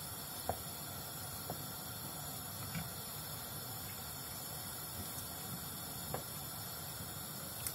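Wooden spoon stirring spaghetti in a pot of hot water, with a few light knocks of the spoon against the pot over a steady faint hiss.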